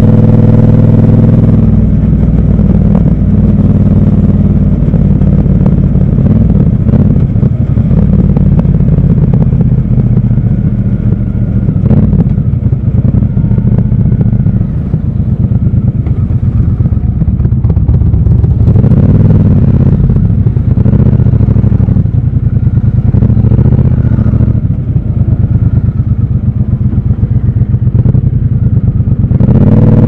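Triumph Scrambler 1200 XC's 1200 cc parallel-twin engine. It runs steadily at road speed at first, then drops about two seconds in to a low, pulsing rumble at low revs as the bike rolls slowly through traffic. A couple of short rises in revs come about two thirds of the way through, and the engine returns to a steady higher note near the end.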